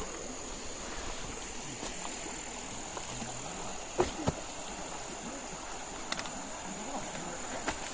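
Steady rush of flowing stream water, with a thin high steady whine over it and two short knocks about four seconds in.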